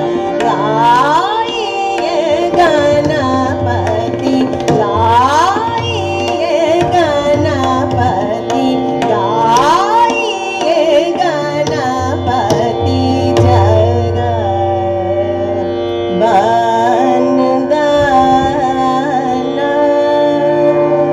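Hindustani classical (khayal-style) singing by a woman, with long sliding, ornamented phrases over a steady harmonium drone and melody. Tabla accompanies with low, resonant bass-drum strokes.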